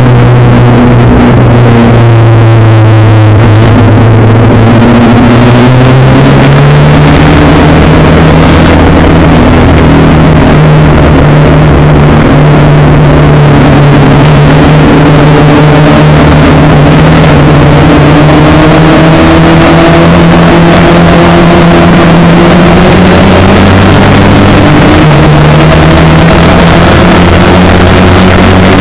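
Spec Racer Ford's four-cylinder engine running hard at high revs, heard from the cockpit, its pitch dipping and climbing a few times and otherwise holding steady. A constant rush of wind and road noise runs under it, and the recording is overloaded throughout.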